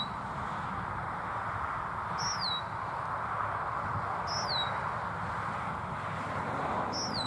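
A bird calling over and over: a short, high whistled note sliding downward, four times about two seconds apart, over a steady background hiss.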